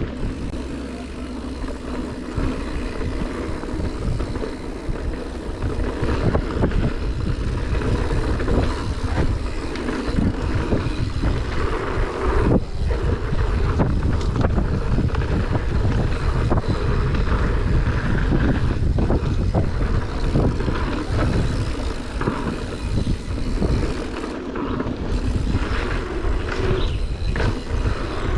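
Mountain bike rolling down a dirt trail: a steady rumble of tyres on dirt and rock, with frequent small knocks and rattles from the bike, and wind on the microphone.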